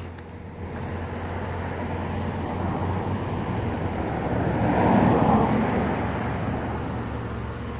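A motor vehicle passing by: its noise swells to a peak about five seconds in and then fades, over a steady low hum. A brief click comes at the very start.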